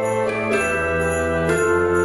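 Background music: bell-like chimes over held chords that change about every half second to a second.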